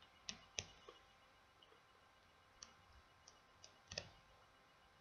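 Faint, scattered small clicks and taps of a precision screwdriver working the tiny star (Torx) screws of a smartphone's casing. There are about eight, the loudest a double click about four seconds in.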